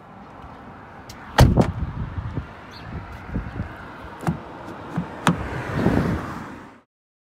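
Driver's door of a VW Golf Mk7 slammed shut about a second and a half in, the slam-lock coding making the central locking lock as it closes. Then come a few sharp clicks as the outside door handle is pulled on the locked door.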